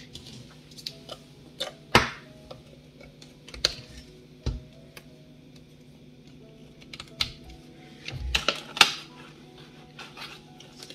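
Irregular clicks and knocks of hardware being handled on a workbench, with two louder knocks about two seconds in and late on.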